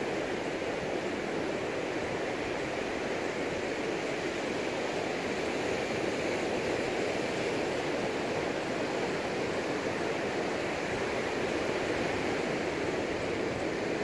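Ocean surf breaking and washing up a sand beach, a steady rushing noise with no distinct single wave crashes.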